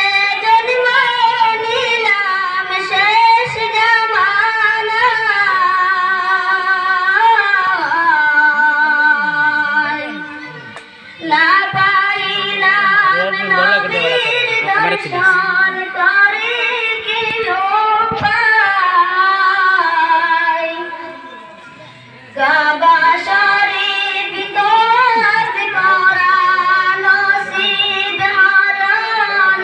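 A single high voice sings a Bengali Islamic ghazal unaccompanied, in long wavering, ornamented phrases. It breaks off briefly for breath about ten and again about twenty-one seconds in.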